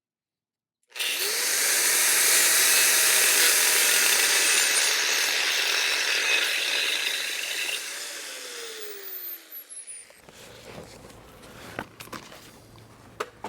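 Power cutting tool cutting off a length of steel tubing: the motor starts about a second in and runs up to speed under a loud, hissing cut. It winds down with a falling whine near the end, followed by light metal knocks and clinks.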